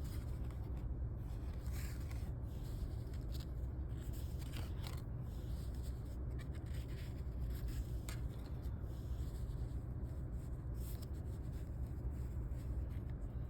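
Trading cards being handled and slid one past another, with faint scattered rubs and scrapes. A steady low hum of a car's cabin runs underneath.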